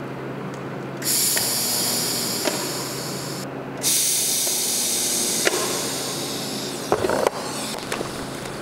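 TIG welding arc hissing in two runs over the steady hum of the welding machine. The arc strikes about a second in and holds for about two and a half seconds, breaks off briefly, then runs again for about three seconds. A few clicks follow near the end.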